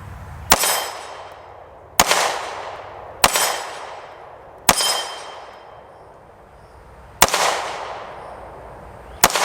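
Six 9mm pistol shots from a Canik TP9 Elite SC, fired at an uneven pace, each with a sharp crack and a decaying echo. A steel gong target rings with a metallic clang after several of the shots, marking hits.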